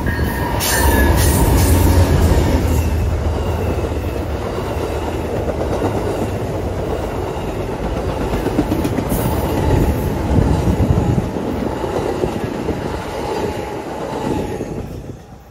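Amtrak Silver Meteor passenger train rolling past: a steady rumble of wheels on rails with scattered clicks and a faint thin whine. The sound drops off sharply near the end as the train clears.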